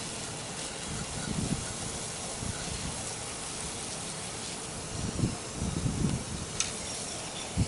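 Garden hose spray nozzle running, a steady hiss of water spraying onto a concrete dock, with a few low thumps and a brief click late on.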